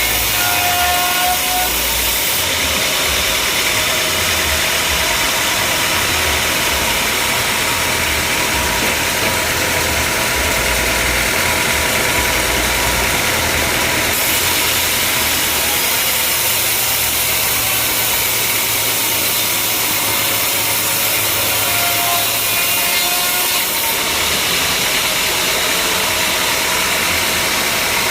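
Sawmill machinery running steadily, a saw cutting through wood over engine noise.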